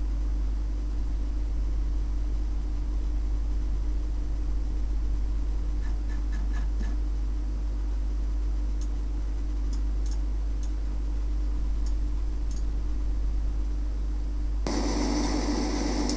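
Steady electrical hum with hiss, the background noise of a computer screen recording, with a few faint clicks in the middle. A louder, noisy sound cuts in abruptly about a second and a half before the end.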